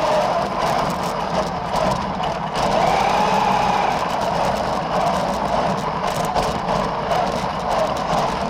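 Radio-controlled car's motor whining as it drifts around, its pitch rising and falling continually with the throttle.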